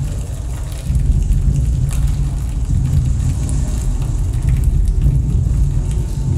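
Electronic noise music played live: a dense, loud low rumble with scattered crackles over it, growing a little louder about a second in.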